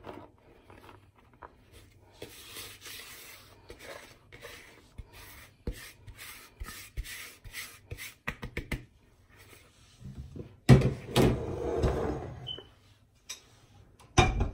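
A hand and a plastic scraper rubbing and scraping through dry flour in a plastic mixing bowl, a soft rustle with scattered small clicks. About eleven seconds in comes a louder bump and scrape lasting a second or two, and another short bump near the end.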